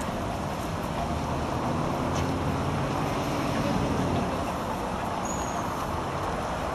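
Steady road traffic noise, with a passing vehicle's engine drone swelling and fading over the first few seconds.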